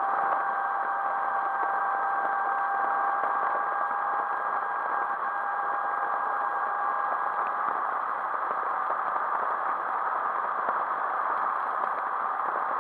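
Motorcycle engine running steadily at cruising speed, heard from a camera mounted on the bike, with wind and road noise. A steady engine tone fades out about halfway through.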